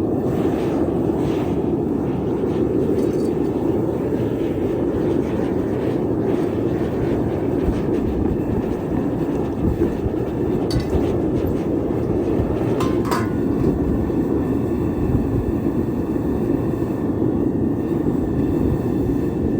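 Melting furnace's gas burner running with a steady, even rumble, with a couple of brief metallic clinks about 11 and 13 seconds in.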